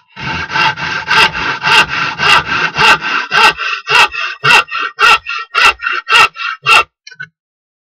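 Hand saw cutting through a wooden panel in quick, even back-and-forth strokes, just under two a second, about a dozen in all. The sawing stops about seven seconds in.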